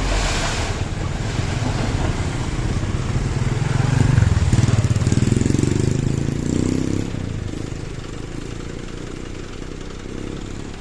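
Excavator's diesel engine running, working harder and louder from about three seconds in, then easing back after about seven seconds.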